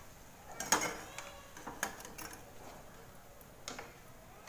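A few light clicks and taps of tongs and a wire skimmer against the wok as fried jalebis are lifted out of the oil, spread out over a few seconds.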